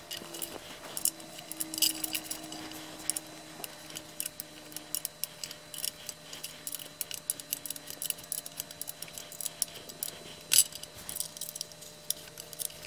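Irregular metallic clicks and jingles of loose bolt hardware being handled and fastened while the stool's legs are put on, with the sharpest clicks about 2 s in and past the 10 s mark.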